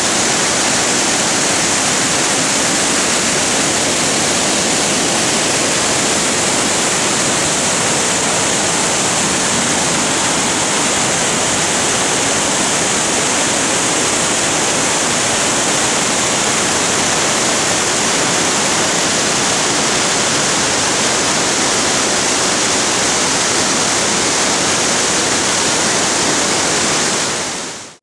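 Large waterfall's torrent of white water pouring over rock: a loud, steady rush that fades in at the start and fades out at the end.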